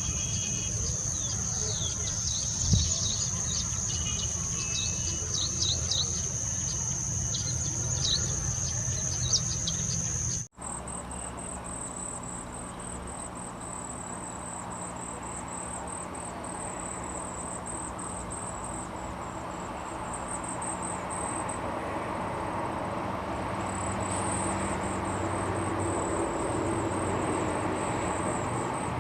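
Insects chirring in one steady high note, with short bird chirps over it. About ten seconds in the recording cuts to a higher, pulsing insect trill over a low steady rumble.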